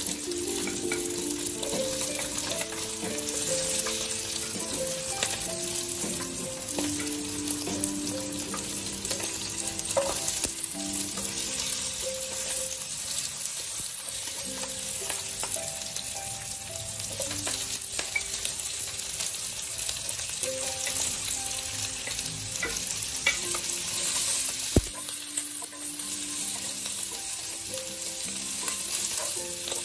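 Chopped bell peppers and carrots sizzling in hot oil in a wok as they are stirred and scraped with a wooden spatula, with small clicks of the spatula. Soft background music runs underneath, and a single sharp knock sounds late on.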